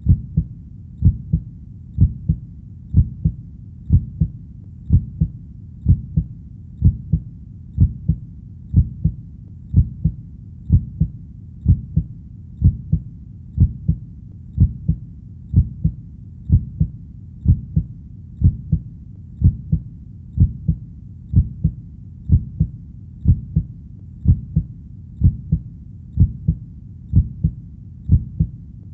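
Heartbeat at a steady resting pace of about one beat a second, each beat a close pair of low thumps (lub-dub).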